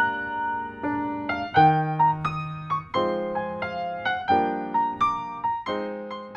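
Background piano music: a slow tune of struck notes and chords.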